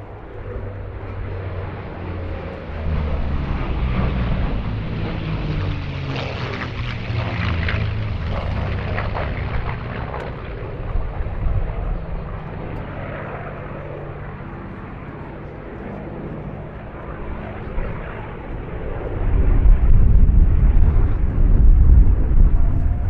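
World War II piston-engined warbirds flying past in display, their propeller engines running steadily, with the engine note shifting in pitch as they pass. A deep low rumble swells near the end and is the loudest part.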